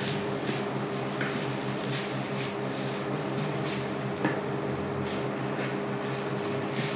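Wooden spatula scraping and turning fried rice in a wok, soft strokes about every half second with one sharper knock against the pan about four seconds in, over the steady hum of an induction cooktop running.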